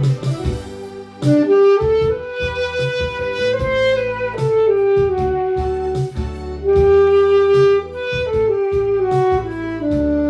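Saxophone playing a song's melody in held, stepping notes over a backing track with keyboard and a steady beat. The saxophone line comes in about a second in after a short pause.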